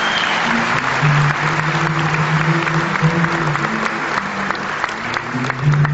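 Audience applause, a dense clatter of hand claps that gradually thins out, over background music holding sustained low notes.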